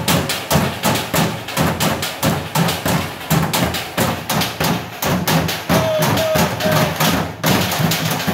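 A group drumming with sticks on blue plastic water jugs used as drums, keeping a steady, fast rhythm of hollow thuds and sharp stick strikes.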